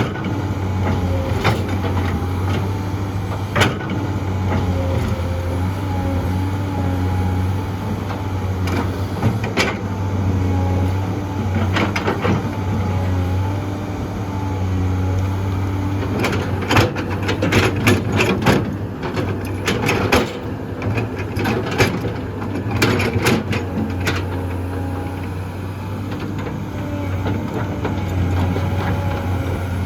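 Heavy diesel engine of an excavator running steadily with a deep, even drone, while dirt and rock are loaded. Scattered loud knocks and clatter cut through it, a few singles early on and a dense run of them past the middle.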